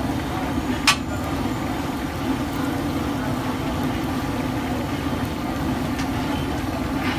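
Fish deep-frying in a large wok of oil over a steady low rumble, with a sharp metallic clink about a second in and another near the end as the tongs and skimmer strike the wok.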